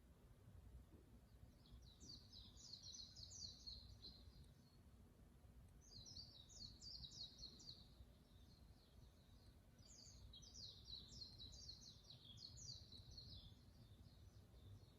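Faint birdsong: a bird singing three bouts of rapid, high chirping notes, each two to three seconds long, over a low steady background hum.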